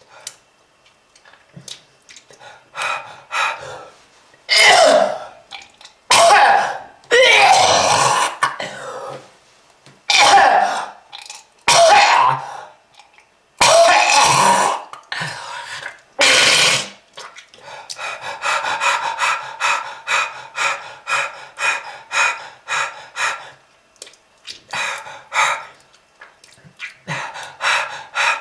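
A smoker coughing and clearing the throat hard: a series of loud, separate coughs, then a long run of quick, short coughs about three a second, with a brief pause near the end.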